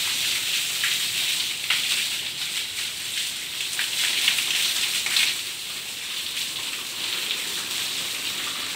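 A jet of water spraying against a concrete ceiling slab and splashing down, a steady hiss with scattered splatter, as the newly cast slab is soaked to cure it.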